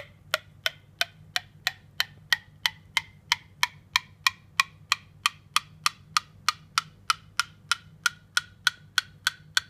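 A spoon taps steadily, about three times a second, in a mug of hot coffee that has just been stirred. Each tap gives a short ringing note, and the note rises gradually in pitch across the taps. This is the 'hot chocolate effect': air bubbles stirred into the hot liquid lower the pitch, and the pitch climbs as the bubbles clear.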